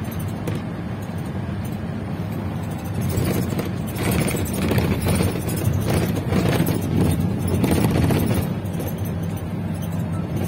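Steady engine and road rumble heard from inside a moving bus's cabin, with music playing along; the sound grows louder and busier in the middle stretch.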